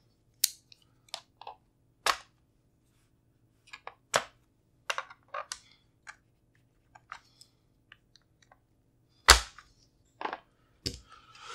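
Scattered sharp clicks and taps of an ATI Bulldog bullpup shotgun being worked on, its captive takedown pins being pushed out with a pin punch; one heavier knock about nine seconds in.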